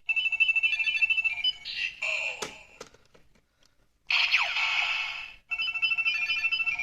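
Electronic sound effects from a Kamen Rider Ziku-Driver transformation belt toy with a Ridewatch inserted: a looping standby jingle of short beeping tones. It is broken about two seconds in and again at about four seconds by a brief whooshing burst with a falling sweep, and after each burst the jingle starts again.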